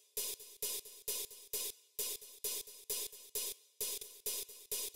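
A percussion loop of short, bright hits, about four a second, played through Ableton Live's Auto-Pan effect. The sine LFO's shape is turned up toward a square wave, panning the loop very hard back and forth, left to right.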